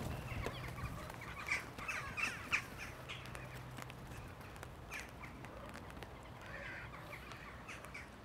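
Crows cawing outdoors, a run of harsh calls about a second and a half in, then a few more later, over a faint low hum.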